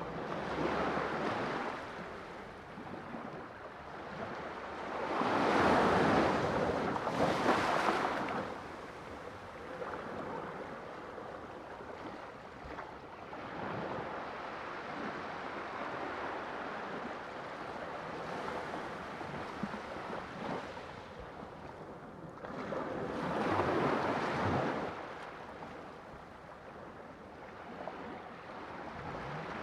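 Sea waves washing in, a steady hiss of surf that swells as waves break, loudest about five to eight seconds in and again in the last quarter.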